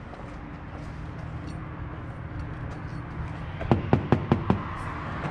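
Five quick knocks on a locked glass restaurant door, all within about a second, over a steady low background hum.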